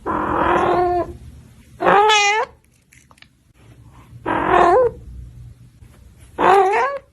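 A pet animal crying out four times, each call drawn out and wavering in pitch and lasting under a second.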